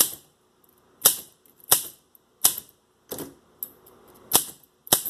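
Keystrokes on an Olympia Deluxe manual typewriter: about seven sharp, slow, unevenly spaced type-bar strikes against the platen as a word is typed one key at a time.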